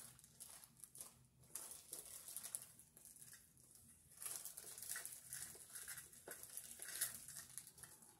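Faint rustling and small clicks of things being handled, uneven, with a slightly louder burst about seven seconds in.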